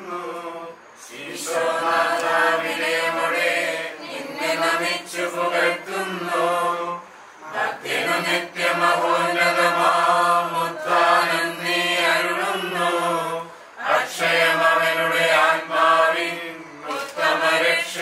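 Chant-like vocal music: long, held sung notes in phrases several seconds long, with short breaks about a second in, around seven and a half seconds, and near fourteen seconds.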